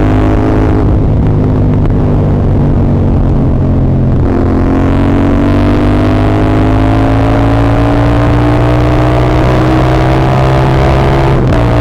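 CF Moto 450SR-S parallel-twin engine under way: a gear change about four seconds in, then a long, steady rise in pitch as it pulls through the gear, and another gear change near the end.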